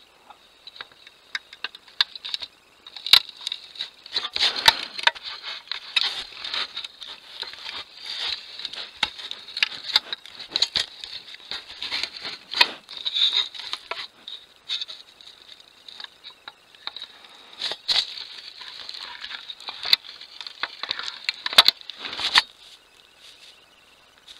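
A bear nosing and rubbing against a trail camera, its fur scraping over the housing with many sharp clicks and knocks. The scraping stops about two seconds before the end.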